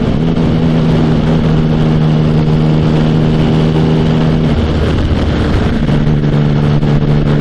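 Sports motorcycle engine running at a steady road cruise, with wind rush on the bike-mounted microphone. About four and a half seconds in, the engine note drops away for just over a second, then comes back steady at a slightly lower pitch.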